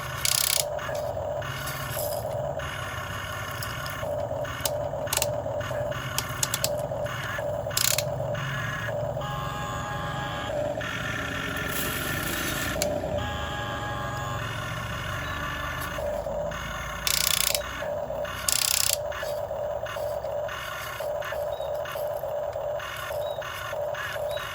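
Toy excavator's small electric motors and plastic gears whirring in short, repeated bursts, with scattered clicks and scraping.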